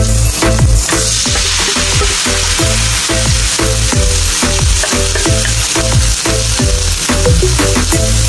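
Vegetables sizzling in hot oil in a wok and being stirred with a wooden spatula; the sizzle brightens about a second in as the cut vegetables go into the sautéed onion and garlic. Background music with a steady bass beat plays throughout.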